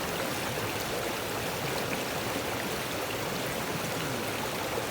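Small glacial-fed river rushing and babbling over rocks, a steady even flow.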